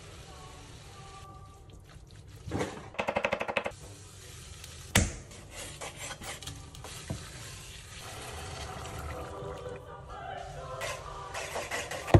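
Kitchen cooking sounds: a quiet sizzle from sliced onions in a pot, a short fast rattle of about a dozen clicks about three seconds in, and a sharp knife knock on a cutting board about five seconds in, followed by lighter knife taps as beef is cut.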